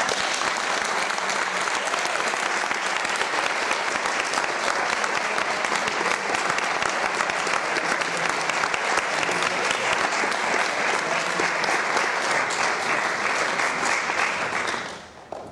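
Audience applauding: steady clapping that starts at once and fades out near the end.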